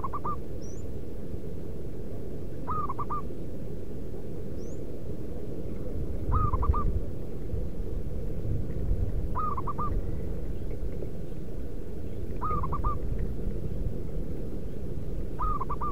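Zebra dove cooing: short bursts of a few quick, rolling coos, repeated about every three seconds, six times, over a steady low background rumble.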